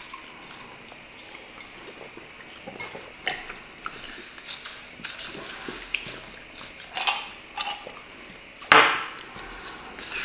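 Eating sounds at a table: a spoon scraping and tapping in a paper cup, with scattered small clinks of glasses and dishes and a louder clink near the end.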